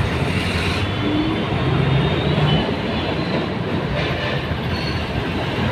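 Diesel engines of city buses running as they move off and pull past, over steady, busy road traffic noise.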